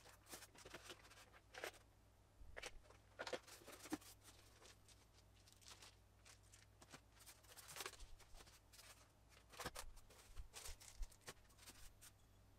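Faint rustling and crinkling of plastic bags, with scattered light taps and clicks at irregular intervals, as bagged accessories are lifted out of a foam-packed box.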